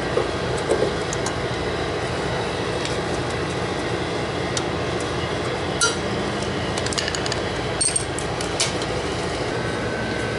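Steady machinery hum with scattered light clicks and clinks of hand tools on metal as wires are fastened to a small condenser fan motor.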